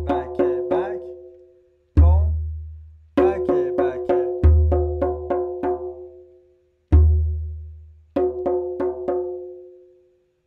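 Tombak (Persian goblet drum) played with the fingers in the TmBk and BkBk patterns: quick, evenly spaced runs of crisp ringing 'bak' and 'ke' strokes, broken by three deep, long-ringing bass 'tom' strokes. The last run dies away shortly before the end.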